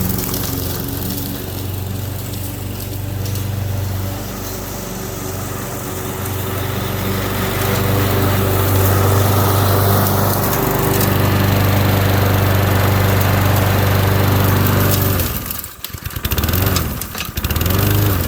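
Walk-behind lawn mower's small gasoline engine running steadily. About fifteen seconds in, the sound breaks off abruptly and then comes and goes unevenly, with a wavering pitch.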